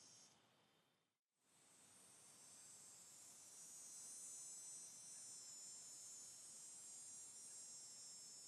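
Cicada's continuous high-pitched buzzing song. It fades out just after the start, drops to silence for a moment about a second in, then fades back up and holds steady.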